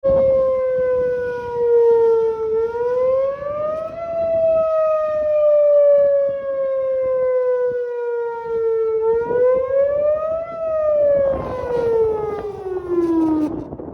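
Whelen Vortex R4 outdoor warning siren sounding a wail on a test after repairs. Its pitch rises quickly twice, each time followed by a slow fall over several seconds, then it falls away and stops shortly before the end.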